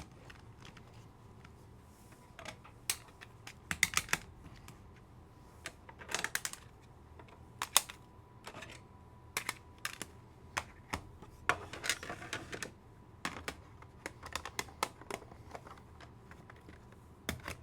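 Irregular light clicks and clacks of trading cards in hard plastic holders being handled and stacked on a desk, some coming in quick runs.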